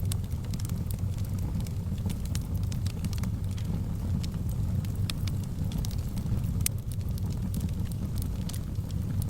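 Wood fire burning in a fireplace: irregular sharp crackles and pops over a steady low rumble of the flames.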